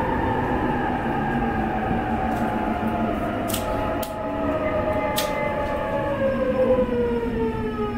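Inside the carriage of a JR East E531-series electric train slowing for a station stop: the traction motors' whine falls steadily in pitch as the train brakes, over the rumble of the running gear. A few sharp clicks come about the middle.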